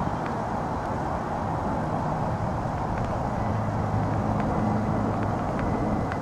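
Steady outdoor traffic noise, with a vehicle engine's low hum swelling through the middle and fading near the end.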